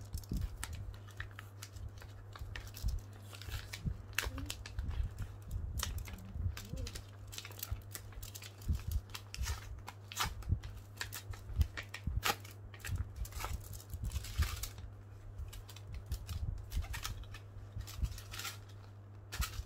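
Paper rustling and crinkling as an envelope is opened and the folded letter inside is unfolded and leafed through, in short irregular crackles. A steady low hum sits underneath.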